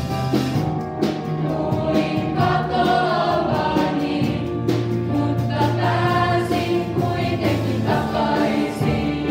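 A group of young voices singing together on stage, with a live band accompanying under steady held low notes.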